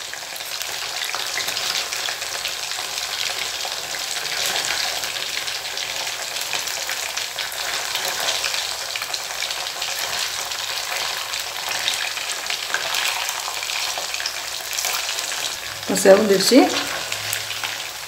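Marinated shark-fish pieces shallow-frying in hot oil in a steel kadai: the oil sizzles and crackles steadily while a steel spoon turns the pieces. A brief, louder pitched sound comes near the end.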